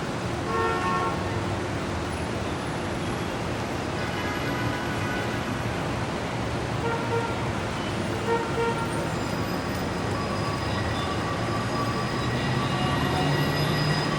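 Manhattan street traffic: steady traffic noise with several short vehicle-horn toots, and longer held tones through the second half.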